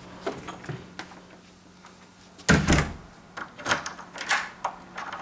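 A door shuts with a loud thump a little past halfway. Several clicks and clacks follow as the newly installed Kwikset deadbolt is worked, testing that the bolt runs smoothly into its new strike plate.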